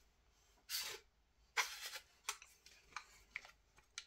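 Parts of a Tokyo Marui MWS gas-blowback airsoft rifle being handled as the upper and lower receivers are closed together: a couple of short, faint scrapes, then several small clicks.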